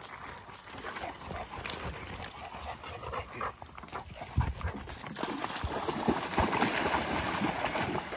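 A dog splashing about in lake water, with a dog's own noises mixed in; scattered short splashes and knocks.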